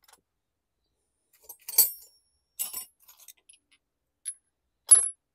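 Metal hand tools clinking against each other as they are rummaged through: four or five short, sharp clinks, the last two near the end ringing briefly.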